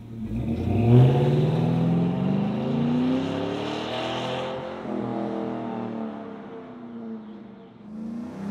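LS V8 in a Chevrolet C10 pickup, breathing through a Flowmaster Original 40 muffler, accelerating hard away. The pitch climbs, drops at a gear shift about halfway, then climbs again as the exhaust fades into the distance.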